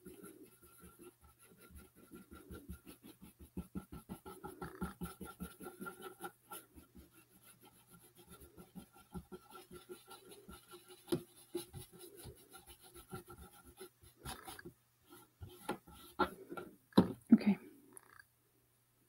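Paintbrush dabbing and scrubbing paint onto a cardboard box, a quick run of soft taps and scratches, with a few louder knocks from the box being handled near the end. A faint steady hum underneath.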